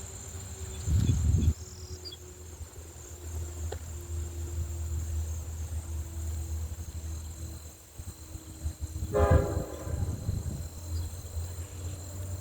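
Crickets trilling steadily in a high, even tone over a continuous low rumble. A short low thump comes about a second in, and a brief pitched sound near nine seconds.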